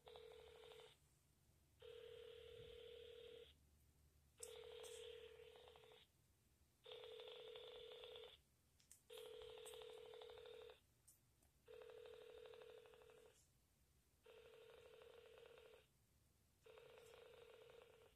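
Faint ringback tone of an outgoing phone call heard through a smartphone's speaker: a buzzy ringing tone that repeats about every two and a half seconds, eight times, while the call waits to be answered.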